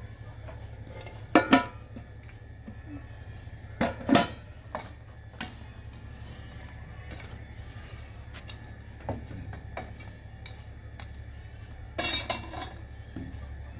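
Kitchenware clinking and knocking as it is handled, over a steady low hum. The loudest is a quick pair of knocks about a second and a half in, then another pair around four seconds, a few lighter taps, and a cluster of clinks near the end.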